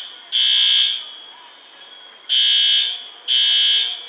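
Building fire alarm horn sounding in the temporal-three evacuation pattern: a high buzzing blast, a pause of about a second and a half, then two more blasts a second apart.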